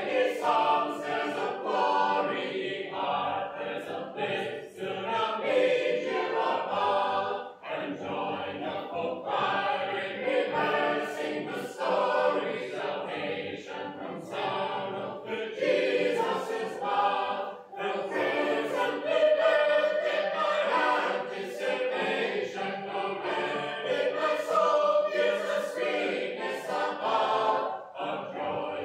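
A small group of mixed voices singing a shape-note hymn unaccompanied, in parts, with short breaths between phrases.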